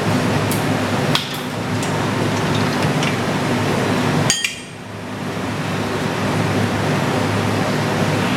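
Metal clinks and knocks from handling a gym leg press machine: a few light clicks, then one sharp metallic knock with a brief ringing about four seconds in, over a steady background hum.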